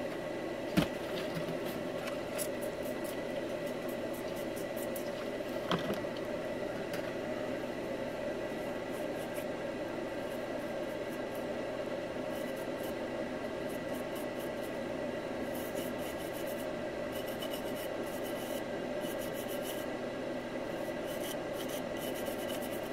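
Small brush scrubbing a water-damaged circuit board to clean off the corrosion, in quick scratchy strokes that get busier in the second half, over a steady background hum.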